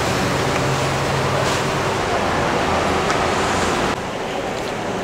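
Plastic basket loaded with durians dragged across a concrete floor, a steady rough scraping that stops abruptly about four seconds in, leaving quieter market background noise.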